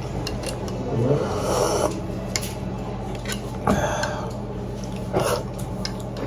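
A person slurping soup from a bowl: three noisy sips, the first the longest.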